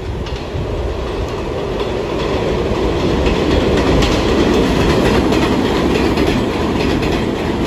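Recorded New York City subway train arriving at a station: a steady rumble of wheels on rail with clattering over the joints, building a little toward the middle.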